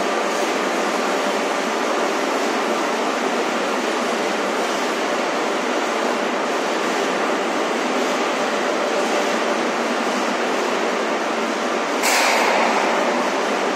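Steady din of running factory machinery, a dense noise with faint humming tones. About twelve seconds in, a sudden louder burst fades over a second or so.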